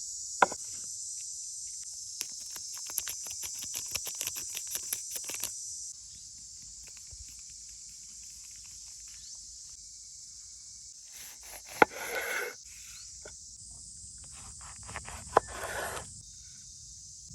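Insects buzzing steadily in a high band, softer after about six seconds. Over it come a quick run of light taps near the start and a few sharp knocks, two of them followed by short bursts of rustling.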